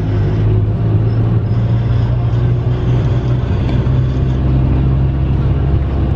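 Steady drone of a tour bus cruising on a highway, heard from inside the cabin: engine hum and road noise with no change in pace.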